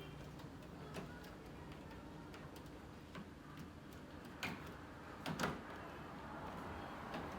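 A few scattered light clicks and knocks, the loudest about four and a half and five and a half seconds in, over a faint steady hum.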